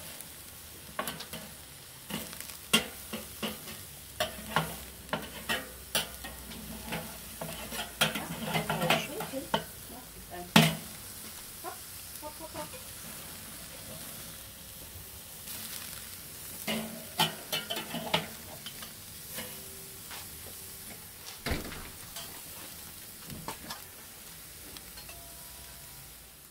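Beef burger patties sizzling on the grate of a Weber charcoal kettle grill as they are turned with a metal spatula. Sharp clicks and scrapes of the spatula against the grate come in clusters through the first ten seconds and again in the second half, over a steady sizzle.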